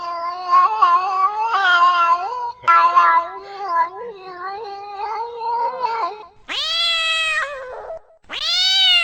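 Cat meowing: a long, drawn-out, wavering yowl lasting about six seconds, then two separate higher-pitched meows, each rising and then falling, near the end.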